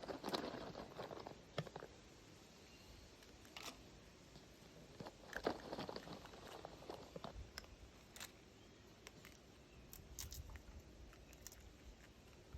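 Raccoon cub crunching dry cat biscuits, faint crackly chewing in two bouts, one at the start and another around five to seven seconds in, with scattered single crunches between.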